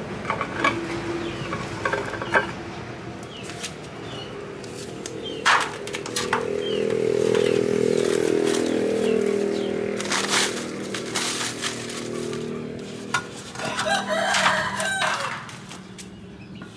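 A rooster crowing, with a few sharp knocks and clatters as the cement stove mould's basin and metal tube inserts are handled.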